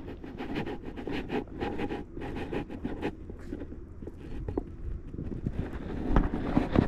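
Footsteps on asphalt with scraping and clothing rustle from someone walking at a steady pace, over a low rumble; a few louder knocks come near the end.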